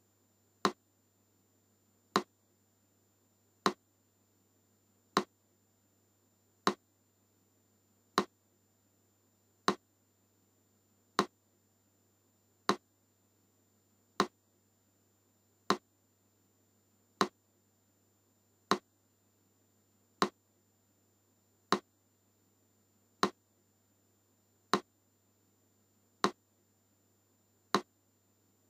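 Metronome ticking slowly and evenly, one sharp click every second and a half, over a faint steady low hum.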